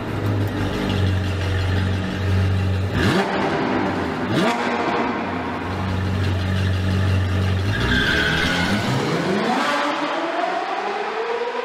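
Sports car engine sound effect: a steady low drone with two quick rising revs about three and four and a half seconds in, then a longer rising rev near the end.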